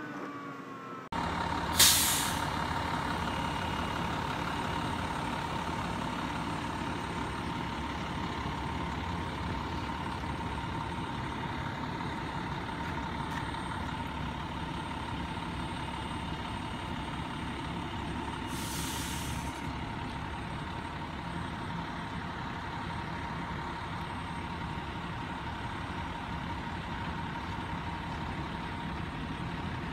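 Fire engine running at a standstill with a steady high whine, its air brakes letting out a loud hiss about two seconds in and a second hiss about nineteen seconds in.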